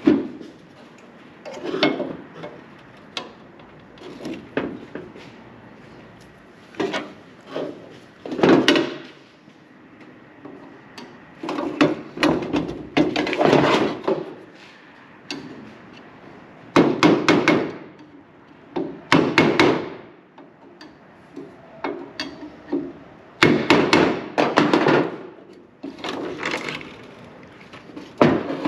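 Hammer blows in short clusters of quick strikes with pauses between, as parts of a car's brake and clutch pedal assembly are driven into place during reassembly with new bushings.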